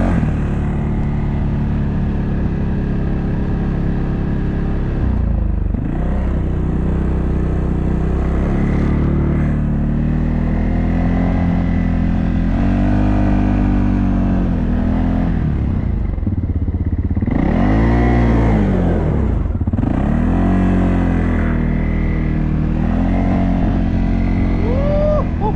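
Off-road vehicle engine running while being driven, revving up and down repeatedly, with the sharpest rev swings a little past halfway.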